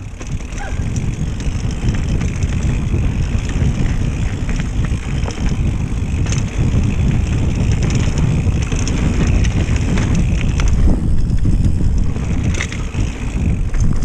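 Mountain bike ridden along a dirt singletrack: tyres rumbling over the trail and the bike clattering, with small knocks throughout and wind rushing over the microphone.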